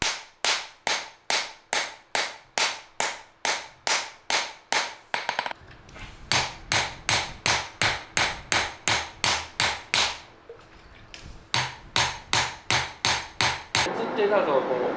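Hand hammer striking a red-hot steel knife blank on an anvil in quick, even blows, about three a second, as the blade is forged into shape. The blows pause for about a second around ten seconds in, then stop shortly before the end, when a steady rushing noise takes over.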